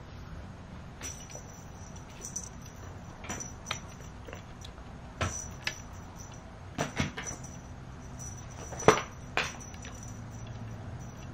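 Scattered soft taps and knocks, irregular, with the loudest about nine seconds in: a cat's head and body brushing and bumping against the camera.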